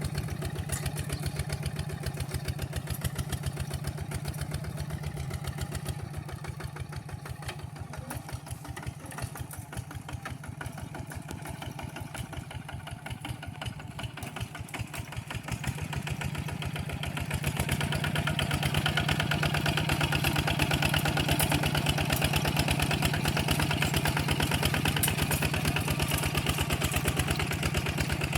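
Walking tractor's engine running steadily as it pulls a plough, with a fast, even chugging beat. It grows quieter for a while, then louder and fuller for the last third.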